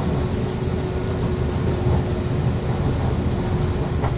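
Moving train heard from inside the carriage: a steady rumble of the wheels running on the rails, with a constant hum under it. There is a short light knock near the end.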